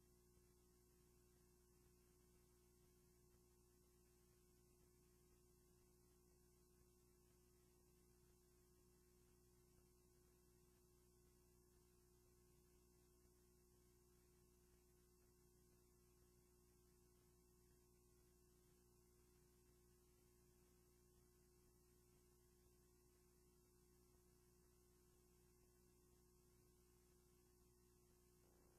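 Near silence: faint steady hum with one thin constant tone, and no other sound.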